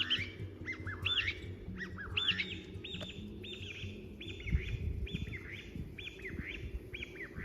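Small birds chirping in a fast, continuous run of short rising-and-falling calls, several a second.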